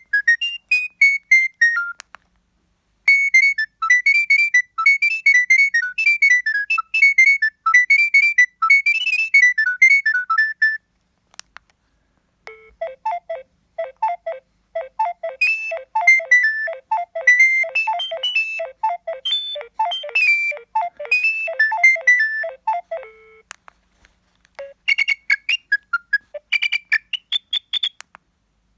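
A Nokia 7250i mobile phone playing its preloaded ringtones one after another: bright electronic note-by-note tunes, each a few seconds long with a short gap between. One tune ends just after the start, a second runs until about a third of the way in, a third with a lower second part under the melody fills the middle, and a short rising tune plays near the end.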